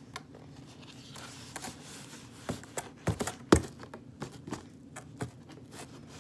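Handling noise: scattered light taps and knocks, with a cluster of sharper knocks about three seconds in, the sharpest about three and a half seconds in.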